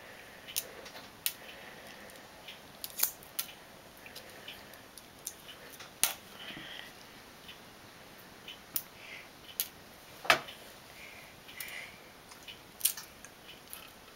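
Fingers picking the shell off a boiled egg: irregular small crackles and sharp clicks of eggshell breaking, a few of them louder.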